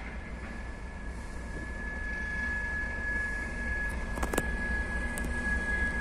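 Diesel freight locomotive approaching, its engine rumble growing gradually louder, with a steady high-pitched whine over it and one sharp metallic knock about four seconds in.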